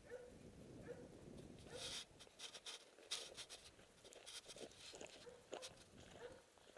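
Faint sounds of a big dog close by: a few short, soft squeaks and scattered clicks and rustles.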